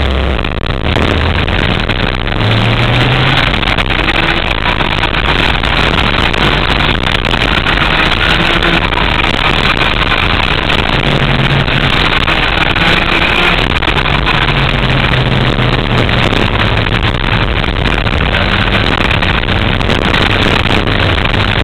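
Go-kart engine heard from onboard at racing speed, running loud and steady, its pitch rising and falling as the kart accelerates down the straights and slows for the corners.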